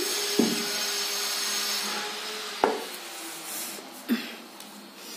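A china plate of rice being handled and set down on a cloth-covered table: three light knocks, the sharpest about two and a half seconds in, over a faint steady hiss and rubbing that fade partway through.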